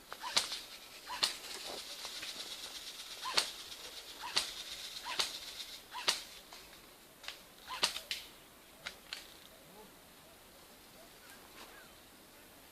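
Airsoft guns firing single shots at irregular intervals, about a dozen sharp cracks over the first nine seconds. A steady high-pitched buzz runs under the shots for a few seconds near the start.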